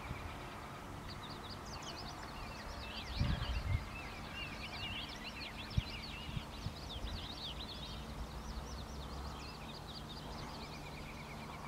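Songbirds chirping and trilling over a steady faint low hum, with a couple of low thumps about three seconds in and a single click near the middle.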